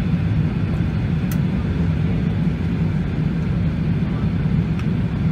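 Steady cabin noise of an Airbus A380 in flight: a constant low drone of engines and airflow.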